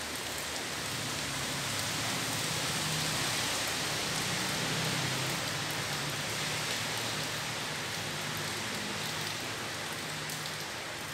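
Steady rain, an even hiss that holds without a break.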